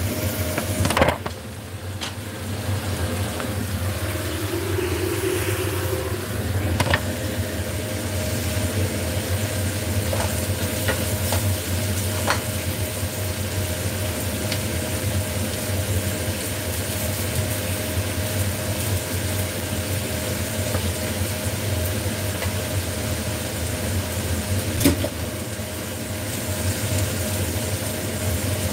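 Chinese cabbage and glass noodles sizzling in a wok, stirred with a wooden spatula, with a few sharp knocks against the pan. Under it runs the steady hum of a kitchen range hood fan.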